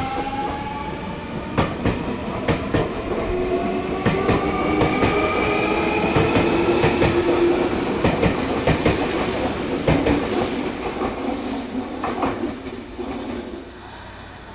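Nankai 8300 series electric train accelerating, its inverter-driven traction motors whining in several tones that rise steadily in pitch, with wheels clicking and clattering over rail joints. The sound drops away near the end.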